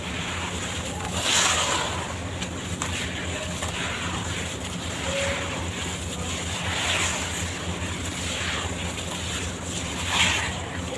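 Wet charcoal sand-cement block being worked in water: a steady rushing swish that swells softly about a second in, again midway and near the end.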